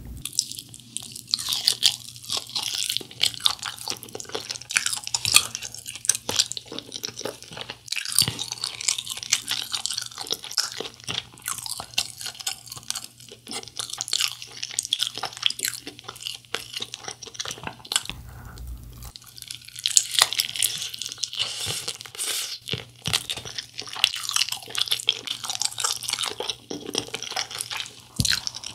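Biting and chewing sauce-glazed fried chicken on the bone: crunchy crackle of the coating and wet chewing, with a short pause about 18 seconds in.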